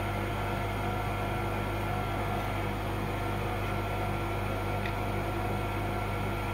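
Solder fume extractor fan running with a steady, constant hum.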